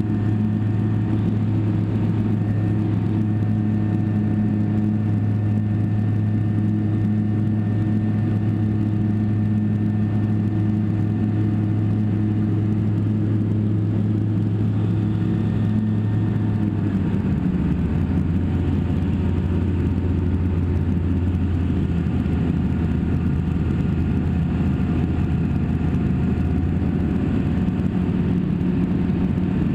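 Single-engine light aircraft's piston engine and propeller running steadily, heard from inside the cockpit. About seventeen seconds in, the engine note drops to a lower pitch as the engine slows, and it holds there.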